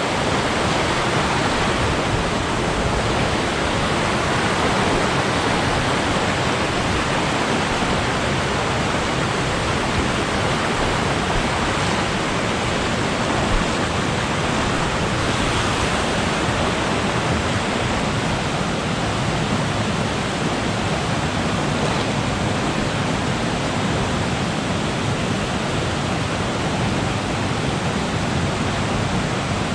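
Steady rushing of a rain-swollen creek pouring over a waterfall, an even, unbroken roar of water.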